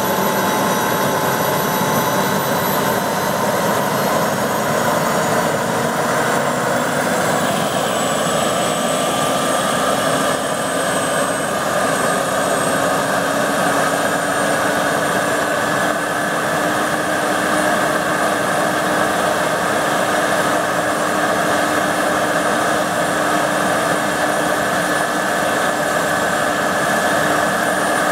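Model gas-turbine engine of a radio-controlled CH-53A scale helicopter running on the ground with its rotors turning. It gives a steady whine that climbs slowly in pitch over a dense rushing noise.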